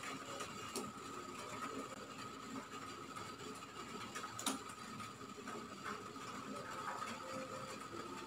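Faint sound of a spoon stirring cilok dough balls in a steel pot of boiling water on a gas stove: a low steady hiss with a few light clicks of the spoon against the pot, the sharpest about four and a half seconds in.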